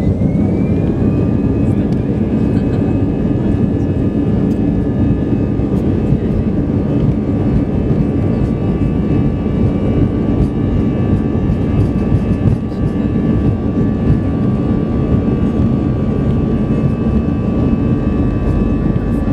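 Airbus A320's jet engines at takeoff thrust during the takeoff roll, heard from inside the cabin over the wing: a loud, steady rushing noise with high whining tones. One whine rises and levels off about a second in, and the tones then hold steady.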